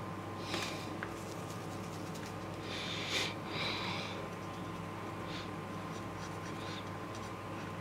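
Felt-tip marker tip rubbing on paper as it colours in, in a few short scratchy strokes, the strongest cluster about three to four seconds in, over a steady electrical hum.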